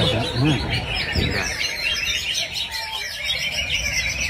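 Cucak ijo (green leafbirds) singing in competition: a dense, unbroken stream of quick, high chirps and twittering trills.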